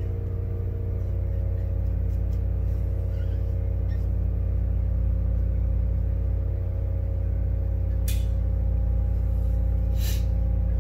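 Steady low drone with an even hum from a carpet-cleaning truck's vacuum pump running outside, heard in the background. Two brief hisses come near the end, about two seconds apart.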